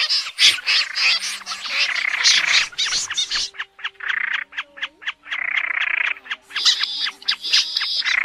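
Snipe calls from a trapping lure recording: harsh, rasping calls repeated densely one after another. They break into runs of rapid ticking about three to five seconds in.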